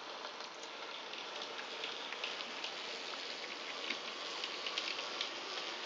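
An N gauge Dapol Terrier 0-6-0 tank locomotive and its wagons running on model track: a steady fine hiss of motor and wheels on rail, scattered with small clicks, getting a little louder near the end as the train comes close.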